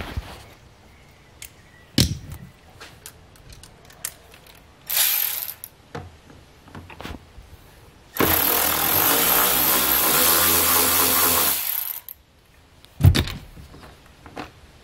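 Cordless drill/driver with a T20 Torx bit running steadily for about three and a half seconds, backing out a plastic-trim screw. Scattered clicks and knocks of handling around it, with a sharp knock near the end.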